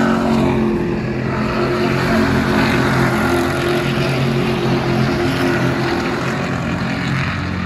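V8 SuperUtes race pickups going past in a pack, several V8 engines running together in a steady drone.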